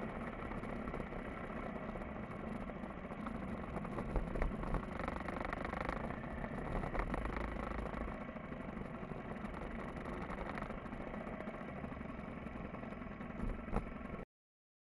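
Motorcycle engine running at a slow riding pace, heard through an onboard camera with road and wind noise and a few brief knocks, then cut off suddenly near the end.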